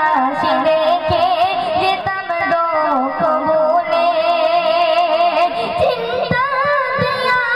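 A girl singing a Bengali gojol, an Islamic devotional song, into a microphone: a slow melody with wavering, ornamented notes, a new phrase starting about six seconds in.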